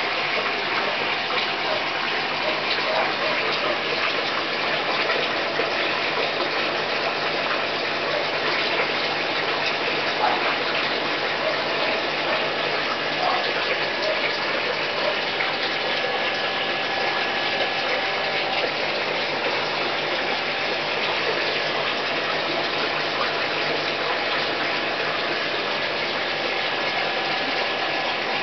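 Steady rushing gush of moving water in a goldfish aquarium, from the tank's water circulation, unchanging throughout.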